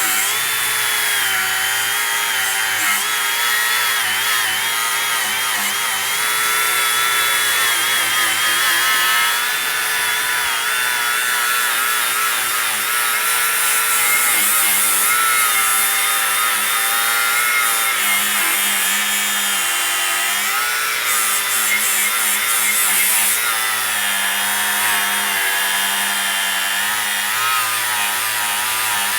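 DeWALT DCG413B 20V cordless angle grinder with a flap disc, grinding rust off metal: a steady, loud high-pitched whine whose pitch wavers as the disc is pressed into the work.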